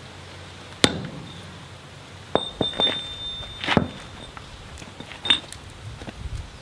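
Hammer blows on a steel drift being driven through the square hardy hole of an anvil: four separate, unevenly spaced strikes. One leaves a clear, high metallic ring for nearly a second.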